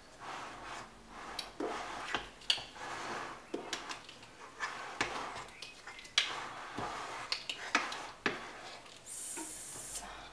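Steel table fork being drawn up and down through thick cake batter in a metal ring tin to marble it, with irregular clinks and scrapes where the fork hits the tin. A brief hiss near the end.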